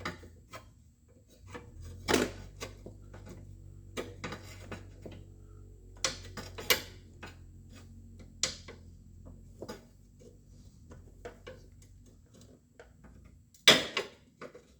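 Wiring harness and plastic wire clips being worked loose from a car dashboard: scattered clicks, rattles and knocks, the loudest knock near the end.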